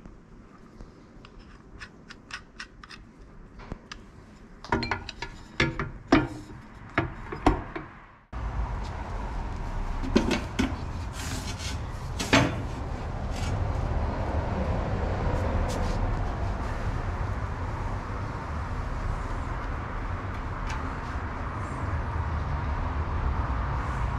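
Sharp metal clicks and knocks from hands turning a bolt on the steel lever of a homemade weighing scale. About eight seconds in, the sound cuts abruptly to a steady low hum, with a few knocks as the scale is pushed into place under a car tyre.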